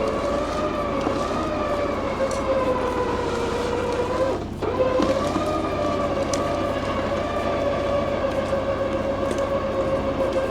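Truck-mounted winch whining steadily as it drags a fallen tree under heavy load, stopping briefly about halfway through and then starting again.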